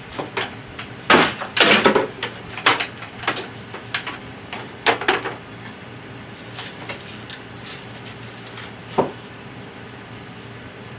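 Knocks and clatter of a grow-light fixture with a metal reflector, and its power cord, being handled against a metal frame. The knocks come in a quick run in the first five seconds, and one more comes about nine seconds in.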